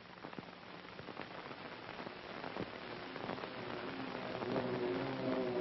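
Steady hiss with scattered faint crackles, slowly growing louder. About four seconds in, sustained music notes come in.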